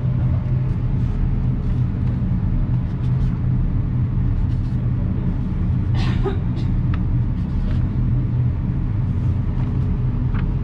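Steady low droning hum of an indoor shooting range's ventilation, with a few faint clicks and knocks over it.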